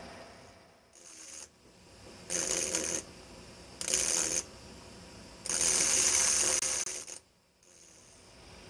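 High-speed glass-engraving drill running in three short bursts with sharp starts and stops, giving a high-pitched hissing whine; the third burst is the longest and loudest.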